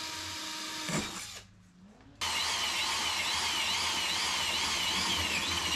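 Cordless drill boring a hole through a solar panel's aluminium frame. It runs, stops for under a second a little after one second in, then starts again suddenly and runs steadily, with a wavering whine.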